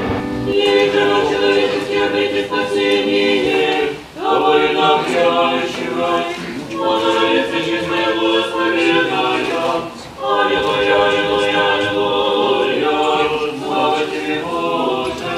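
Unaccompanied choir singing in long phrases of held notes, with brief pauses about four and ten seconds in.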